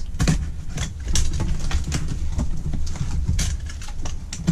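A knife slitting packing tape on a cardboard box: irregular scrapes and sharp clicks as the blade cuts and the cardboard is handled, over a low steady hum.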